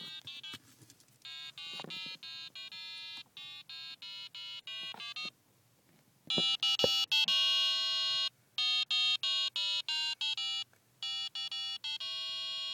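Custom microcontroller door chime relay in a VW Golf, set off by the key in the ignition, playing a programmed tune as a string of short electronic beep notes. The melody stops for about a second midway, then carries on louder.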